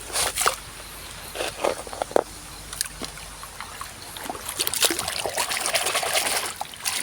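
Water sloshing and trickling as muddy plastic toy vehicles are washed by hand, with scattered short knocks of plastic; the splashing gets busier about halfway through.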